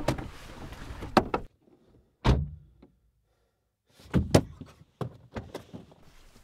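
Car doors being opened and shut: a series of sharp latch clicks and heavy thumps, with a gap of about a second in the middle.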